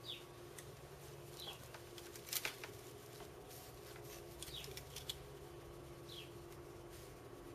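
A few sharp clicks and taps of small parts and tools being handled at a workbench, the loudest a couple of seconds in, over a steady electrical hum. A bird's short falling chirp repeats in the background about every second and a half.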